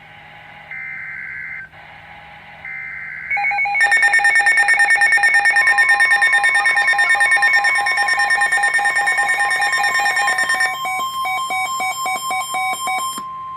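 NOAA Weather Radio Emergency Alert System signal announcing a new warning. It opens with three short bursts of SAME digital header data. Then comes a weather radio receiver's loud, rapid alarm beeping, and the steady 1050 Hz warning alarm tone joins it a couple of seconds later.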